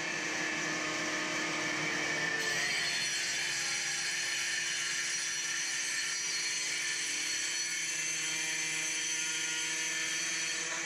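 Handheld power grinder working a quartz countertop in place, with a shop vacuum drawing off the dust: a steady whine with a loud hiss.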